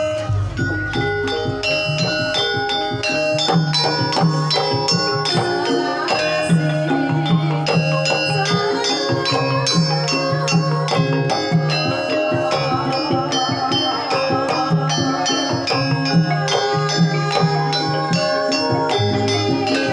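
Javanese gamelan music: many struck, ringing metal notes layered over a repeating low drum pulse.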